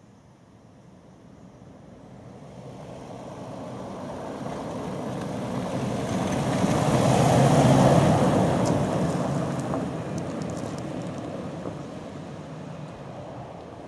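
A 4WD wagon driving past on a gravel road: engine and tyre noise build up, peak about eight seconds in as it goes by, then fade as it drives away. Just after it passes, a few small stones tick under the tyres.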